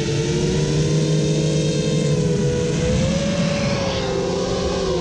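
Brushless motors and propellers of a 7-inch FPV quadcopter (Brotherhobby Avenger 2806.5 1300kv) whining in flight, the pitch rising and falling with the throttle and dropping near the end, over a low wind rush.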